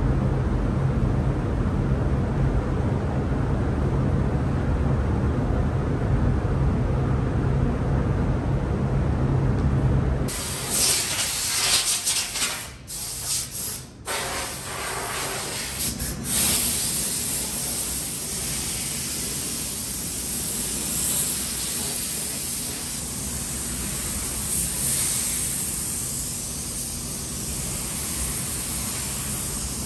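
A steady low rumble, then from about a third of the way in a gravity-feed paint spray gun hissing steadily as it sprays a truck tailgate, cut off twice briefly a few seconds later when the trigger is let go.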